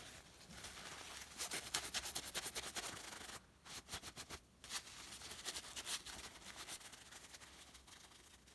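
Paper towel wet with Ballistol oil rubbed quickly back and forth over the small metal file of a Leatherman Squirt multi-tool: faint, rapid scratchy strokes with a couple of short pauses.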